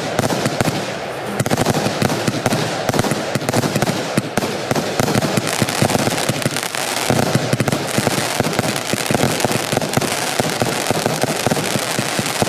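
Vivid Pyrotechnics Velocity firework barrage firing a dense, continuous stream of rapid shots and cracking bursts.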